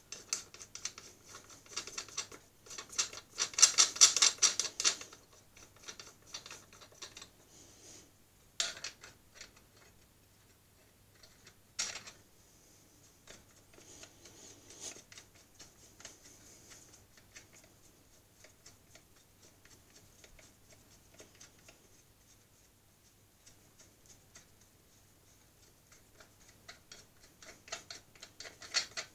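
Metal nuts being threaded by hand onto the threaded rods on top of a bottle-jack press: small metallic clicks and rattles. There is a busy flurry of clicks about four seconds in, sharp single clicks near nine and twelve seconds, and more clicking near the end.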